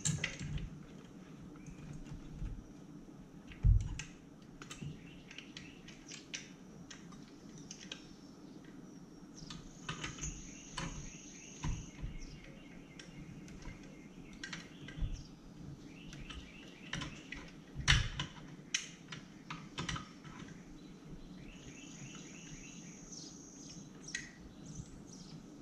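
Small hand tools clicking and tapping on the motorcycle, including a 1/4-inch drive ratchet, in scattered short clicks. Two louder metal knocks come, one about four seconds in and one past the middle.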